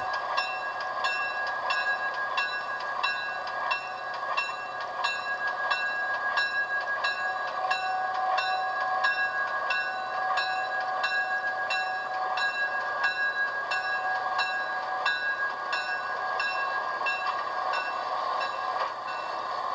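Train running on rails: a steady rolling noise with a steady whine, and rhythmic clicks about twice a second.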